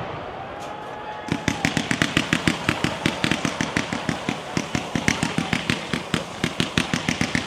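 Fireworks battery firing gold-tailed comets in rapid succession, a fast even run of sharp shots at about six a second, starting about a second in. Before that, the echo of a big bang dies away.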